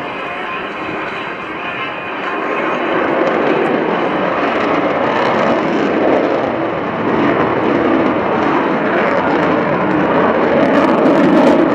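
Lockheed F-22 Raptor's twin Pratt & Whitney F119 turbofans as the jet flies overhead: loud, steady jet noise that grows louder about two and a half seconds in.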